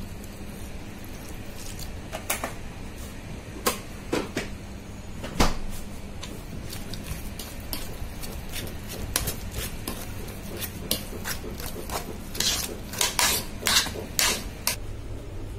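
Metal potato masher knocking and scraping against a black non-stick pot while milk is mashed into potatoes: irregular sharp clicks and knocks, with a quick cluster of them near the end, over a low steady hum.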